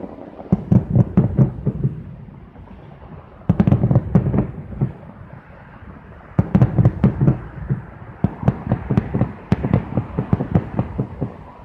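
Aerial fireworks going off in several bursts of rapid cracks and pops, each cluster lasting a second or more, with quieter rumbling gaps between, picked up by a cheap phone's microphone.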